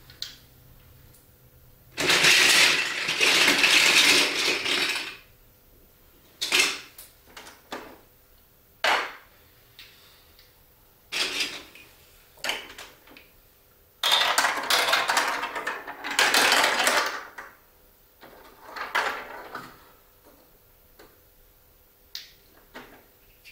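Plastic Duplo blocks and marble-run pieces being handled and rummaged through: two spells of rattling clatter lasting about three seconds each, with scattered single clicks and knocks between.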